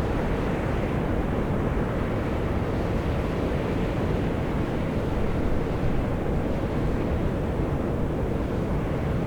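Volcanic fumarole vents jetting steam and gas: a steady rushing hiss, deep and even, with no change throughout.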